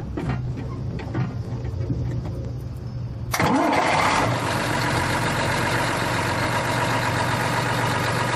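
Mercedes-Benz Unimog's OM352 six-cylinder diesel being started: a few seconds of the starter turning it over, then it catches about three seconds in with a brief rise in revs. It settles into a steady idle.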